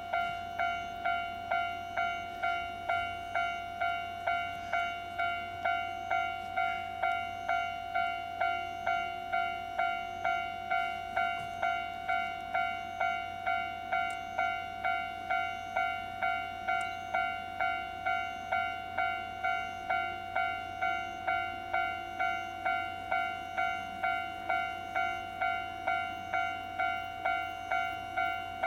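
Railroad level-crossing warning bell ringing steadily, a bright pitched clang repeating about one and a half times a second: the crossing is warning of an approaching train.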